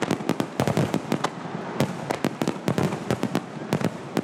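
A barrage of aerial firework shells bursting: many sharp bangs in quick, irregular succession.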